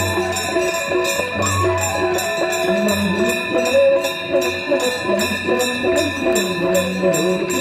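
Devotional Hindu aarti music: a wavering melody over a steady beat of jingling percussion, about three strokes a second, with ringing tones held underneath.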